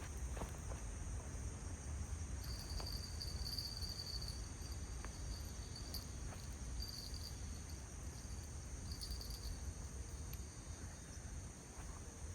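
Insects trilling steadily in the background, with a second, lower trill coming and going in bursts through the first part and middle, over a low rumble.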